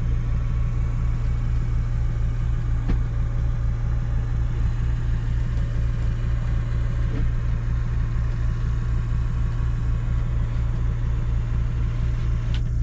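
An engine idling: a steady low hum with an even, fast throb.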